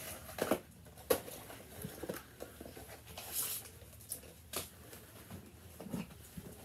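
Gift boxes and packaging being handled: a few light knocks and taps as items are set down and picked up, with a short rustle of packaging in the middle.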